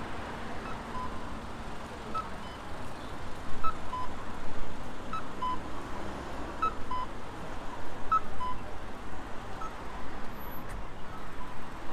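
Electronic two-tone chime, a higher note then a lower one, repeating about every one and a half seconds over steady street noise.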